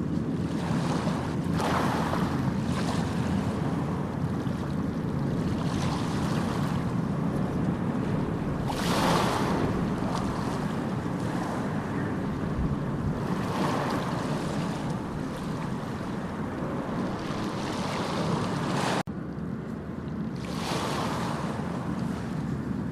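Sea waves breaking and washing in over a steady low rumble, swelling into a hiss every few seconds, the strongest about nine seconds in. A few seconds before the end the sound cuts off abruptly and starts again.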